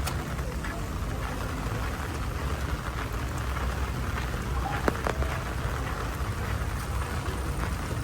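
Heavy rain falling steadily, an even hiss, with a sharp tap about five seconds in.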